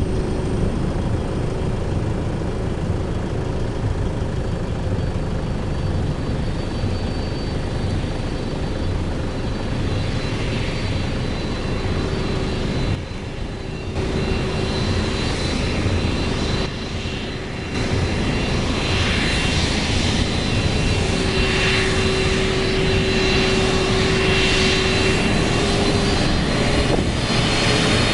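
Boeing 767-300 freighter's twin turbofan engines running at taxi power: a steady rumble with high whining tones held over it. The level dips briefly twice partway through.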